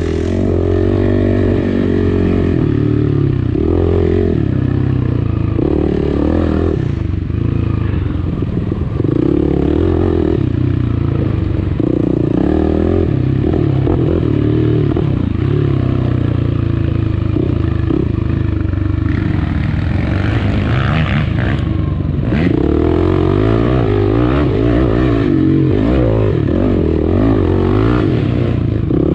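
Yamaha dirt bike engine revving up and down with the throttle as it is ridden hard over rough trail, heard close from a bike-mounted camera. A stretch of scraping and clattering comes about twenty seconds in.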